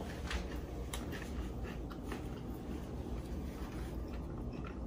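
Quiet room tone: a steady low hum with a few faint, soft clicks and taps scattered through it.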